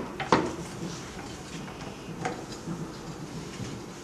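Sharp clicks and taps as the edge of a silicone cover is pressed hard into the frame of a 3D sublimation heat press: one click right at the start and another a third of a second later, then a few fainter taps.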